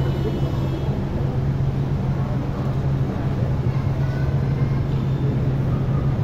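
A steady low machine hum over a rumbling noise, unchanging throughout.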